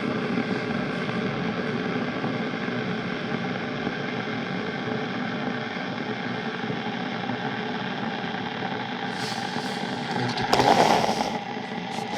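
Deerma DR035 electric kettle heating water in boiling mode, a steady rumbling hiss as the water nears the boil. The sound surges louder for about a second near the end.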